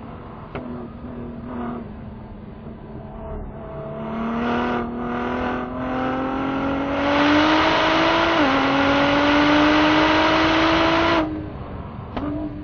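Ford GT's twin-turbo V6 under hard acceleration: the engine note climbs steadily, drops at a quick upshift about eight and a half seconds in, climbs again, then the throttle closes abruptly near the end and it falls back to a quieter running sound.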